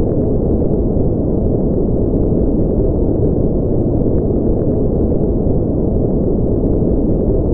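A steady, loud, deep rumbling noise with no rhythm or tone, and faint ticks now and then.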